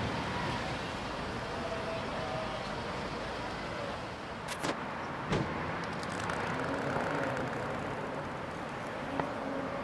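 Steady background of distant road traffic, a continuous rumble and hiss. A couple of sharp clicks come about halfway through and another near the end.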